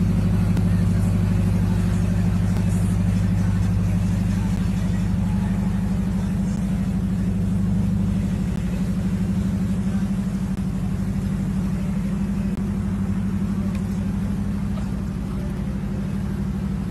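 Motorboat engine running steadily at speed, a low drone with a steady hiss over it.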